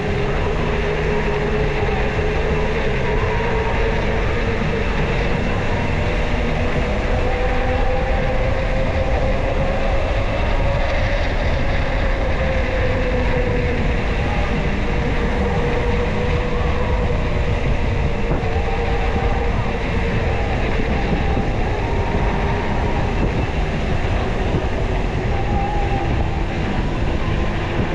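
Steady rumble of wind and road noise from a moving bicycle, with a hum that slowly rises and falls in pitch.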